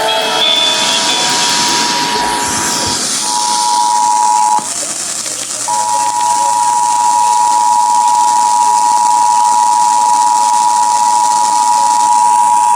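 Emergency Alert System attention signal over FM radio: the steady two-tone alert sounding, breaking off briefly about three seconds in and again for about a second near five seconds before carrying on. Radio hiss lies underneath in the first few seconds.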